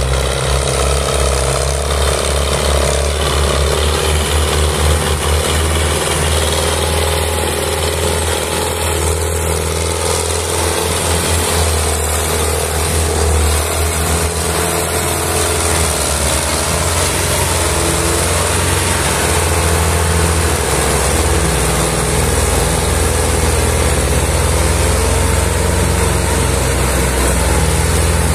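A Belarus tractor's diesel engine runs steadily under heavy load, hauling a trolley piled high with sugarcane. The engine note stays low and even, with only small shifts in pitch.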